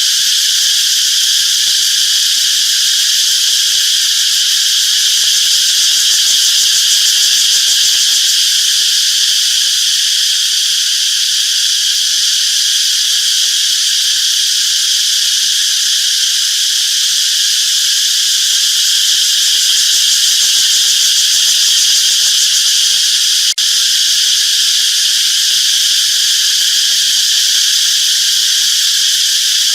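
A chorus of insects buzzing steadily, a high-pitched drone held at one level without a break. There is a brief click about two-thirds of the way in.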